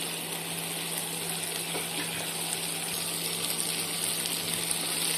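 Chopped vegetables sizzling in hot oil in a frying pan on an induction hob: a steady hiss that grows a little louder toward the end, over a steady low hum.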